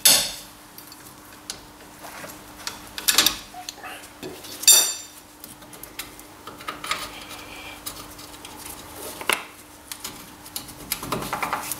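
Hand tools and steel bolts clinking and clanking at a car's front brake caliper carrier as a corroded carrier bolt is undone and removed. A loud ringing metal clank comes right at the start, two more about three and five seconds in, and lighter knocks later.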